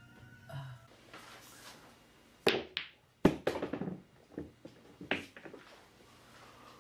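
A few sharp knocks of hard objects, loudest about two and a half and three and a quarter seconds in, with smaller clicks and taps between them and another knock about five seconds in.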